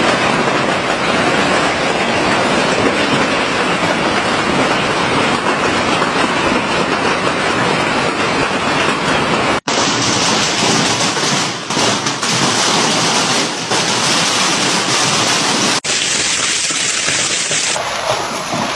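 Hail pelting down in a strong wind: a loud, dense, steady clatter and rush. It breaks off abruptly twice, about ten and sixteen seconds in, and picks straight up again.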